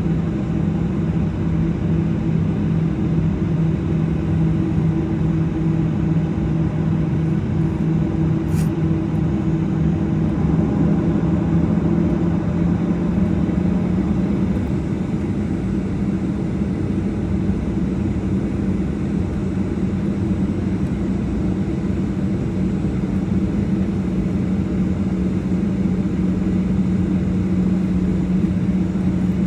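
Boeing 737-800's CFM56-7B jet engines running, a steady drone with a low hum that shifts slightly up in pitch about twelve seconds in.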